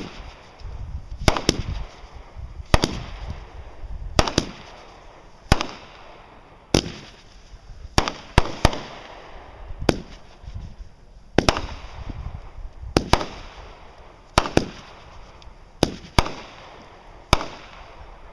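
Fireworks going off in a steady series: a sharp bang about every second and a half, a few of them doubled, each trailing off in a fading rush of noise.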